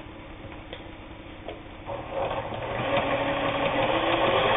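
Kenmore 158.19802 sewing machine starting to stitch about two seconds in and picking up speed, getting steadily louder with a fast even rhythm as it sews through two layers of heavy denim without strain.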